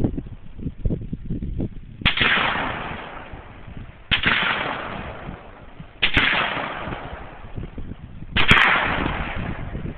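Four sharp bangs about two seconds apart, each trailing off in a long echoing decay, with a few dull thumps before the first.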